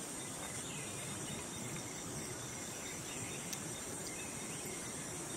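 Outdoor ambience dominated by a steady, high-pitched drone of insects, with a few faint chirps and a couple of small clicks.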